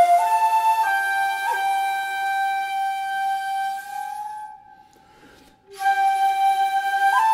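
Background music: a flute playing a slow melody of long held notes. It fades away a little past halfway and starts again about a second later.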